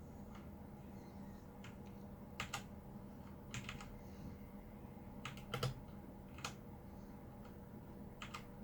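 Keys on a Redragon K617 Fizz mechanical keyboard being pressed sparsely: single clacks and short clusters of two or three strokes, with pauses of about a second between them.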